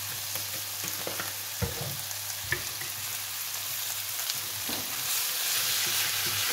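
Chicken and vegetables sizzling in freshly added sunflower oil in a hot frying pan, with a few knocks and scrapes of a silicone spatula as they are stirred. The sizzle grows louder about five seconds in.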